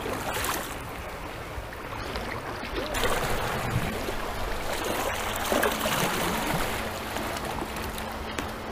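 Rushing water at a river weir, a steady hiss that gets louder about three seconds in.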